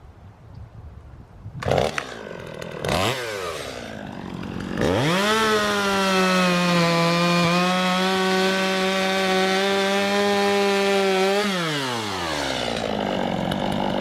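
Two-stroke chainsaw: a couple of short throttle blips, then held at full throttle for about six seconds as it cuts through a large round hay bale, the pitch sagging slightly under load, before dropping back toward idle near the end.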